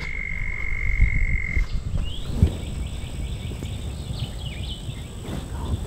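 Outdoor morning wildlife sounds: a steady high-pitched trill that cuts off about a second and a half in, then birds chirping, over a low rumble.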